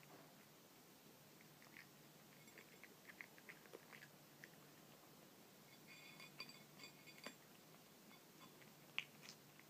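Tabby cat eating dry kibble: faint, irregular crunching and clicking as it chews, with one sharper click near the end.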